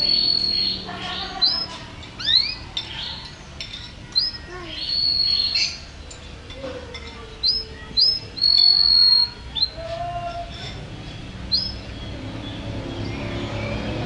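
Domestic canary singing: a series of clear, high whistled notes, many with a quick upward hook, broken by a few longer held notes. The song thins out in the last few seconds.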